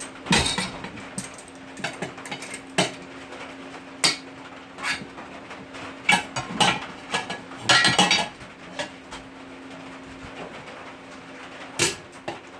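Irregular metal clanks and knocks of tools and steel parts against a lawnmower wheel rim during tire mounting on a homemade tire changer, coming in uneven clusters, with the loudest run a little past the middle. A faint steady hum runs underneath.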